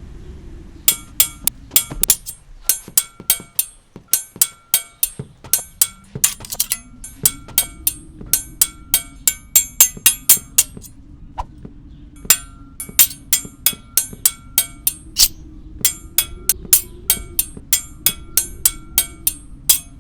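Foley sword fight: metal pieces struck together in quick flurries of ringing clashes, several a second, with a short lull about eleven seconds in, over a low steady background bed.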